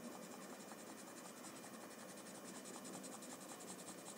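Faint scratching of a white chalk pencil tip stroking on paper, laying in highlights, over a low steady hiss.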